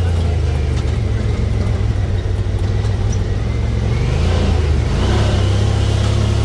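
ATV engine running while riding, a steady low drone whose pitch shifts slightly about four seconds in.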